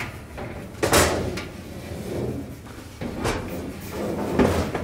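Steel dryer drum being lifted out of its cabinet, knocking and scraping against the sheet-metal housing: three sudden bumps, about a second in, just past three seconds, and near the end.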